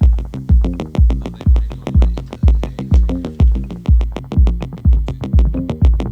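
Electronic dance music with a heavy kick drum about twice a second, a repeating bass line and fast hi-hat ticks.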